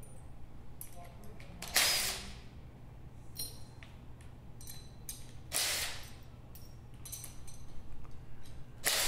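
DeWalt cordless impact driver running in three short bursts of about half a second each, backing bolts out of a gearmotor housing. Small scattered clicks come between the bursts.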